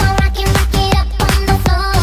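Electronic dance music with a steady beat over a sustained bass line.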